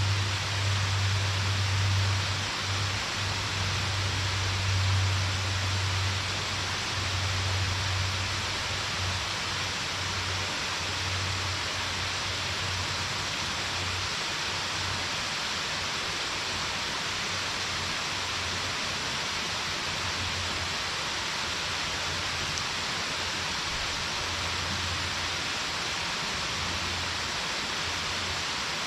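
Waterfall's water crashing down in a steady, even rush, with a low rumble that comes and goes during the first half and then fades.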